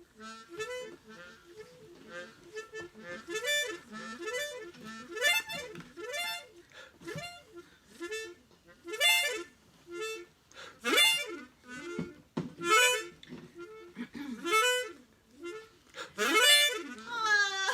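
A harmonica playing a tune of short phrases, many notes sliding up and down in pitch.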